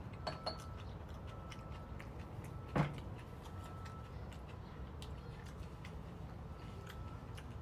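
Beef brisket slices and bean sprouts sizzling on a hot griddle tray: a steady run of small crackling pops over a low steady hum. About three seconds in, a single sharp knock, a glass soju bottle set down on the table.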